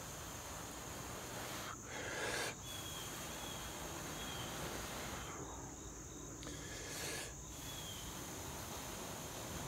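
Steady high-pitched insect chirring, typical of crickets, with a few short bird-like chirps. Two short rushes of air-like noise, about two seconds in and again about seven seconds in, are the loudest sounds.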